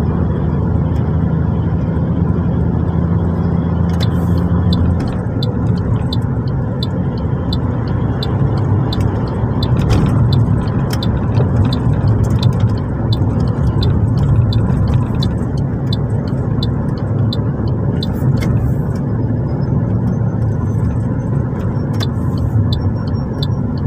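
Car engine and tyre noise heard from inside a moving taxi's cabin: a steady low hum with road rumble. From about four seconds in, a light, regular ticking comes roughly twice a second.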